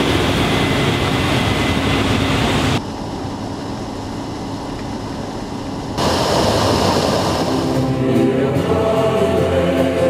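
Case IH 8230 Axial Flow combine harvesting corn, a steady machine hiss and rumble that changes abruptly twice. Choral music comes in about eight seconds in.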